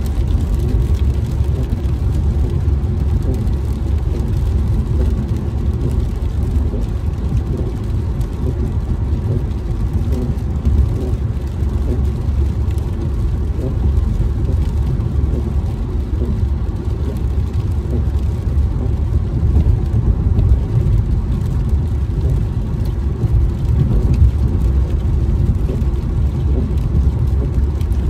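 Steady low rumble of a car driving on a wet freeway, heard from inside the cabin: road and engine noise.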